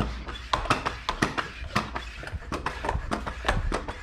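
Bicycle tire pump inflating the inner tube of a newly fitted tire the rest of the way toward about 50 psi, with repeated sharp clicks a few times a second over a low steady rumble.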